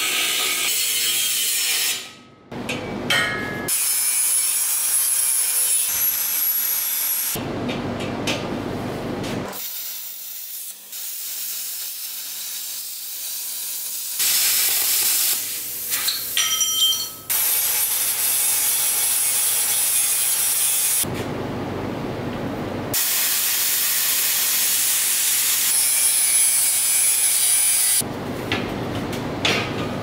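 Angle grinder with a cut-off wheel cutting through steel square tubing, a high whine over a dense hiss, in several separate stretches with short breaks between them.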